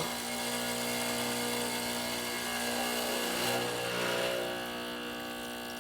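Pasquini espresso machine's pump running steadily as it pulls an espresso shot, a hum with a noisy hiss over it that shifts slightly in tone about three and a half seconds in.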